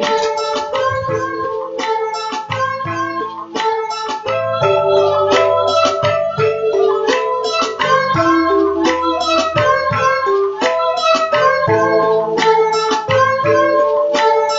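Closing music: a plucked guitar playing a quick, rhythmic tune over a bass line.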